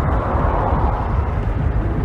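Honda Grom's small single-cylinder engine running, heard muffled through a phone in a pocket, with a steady heavy low rumble over it.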